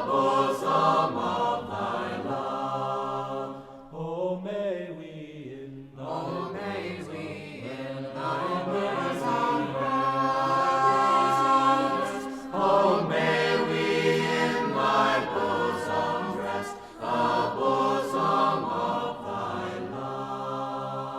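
A mixed choir singing a hymn a cappella in full, sustained harmony. The phrases break off briefly and swell again several times.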